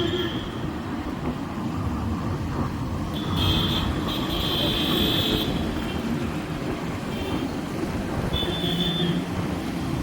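Road traffic: a steady rumble of passing vehicles, with high-pitched horn toots about three seconds in, lasting a couple of seconds, and again near the end.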